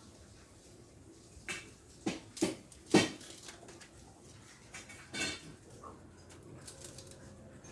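Several short, sharp clicks and knocks, the loudest about three seconds in, with a last one about five seconds in, against a quiet background.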